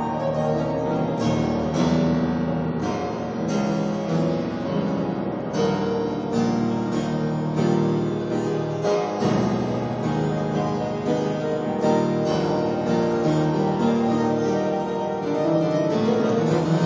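Steinway grand piano played with its lid down: a continuous improvisation in a Spanish style, with notes and chords following one another without pause.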